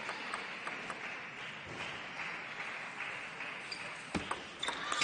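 Table tennis ball striking the table and rubber-faced paddles in a rally: a string of light, sharp clicks, louder and closer together about four seconds in, over the steady noise of the hall.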